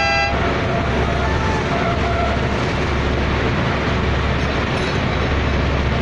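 A short horn blast that cuts off just after the start, then a steady low rumble of river traffic and boat engines.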